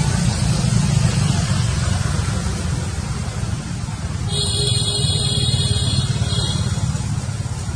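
Steady outdoor background rumble, likely traffic, with a steady high-pitched tone about four seconds in that lasts around two seconds.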